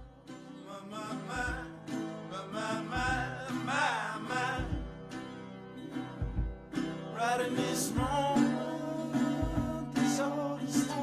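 Intro music: a song with singing over guitar, with a low beat about every second and a half.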